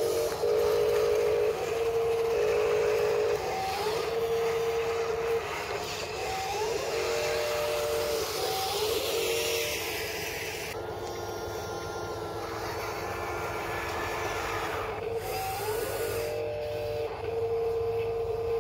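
Electric motors of a Huina 583 RC wheel loader whining as it drives and works its arm and bucket. The whine comes in repeated spells, each starting with a brief rise in pitch and then holding steady.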